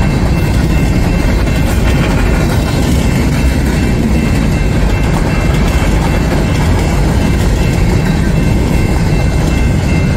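Freight train cars, covered hoppers and then autoracks, rolling past at close range: a loud, steady rumble of steel wheels on the rails with some clickety-clack.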